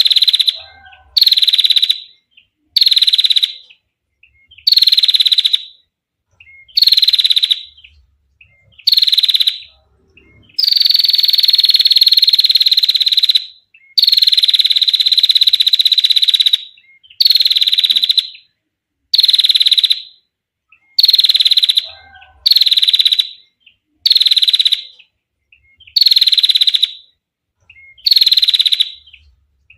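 Female prinia giving its long, clear rattling trill, the 'ngetir' call: fast buzzy bursts about a second long, repeated every couple of seconds, with two longer trills of about three seconds near the middle.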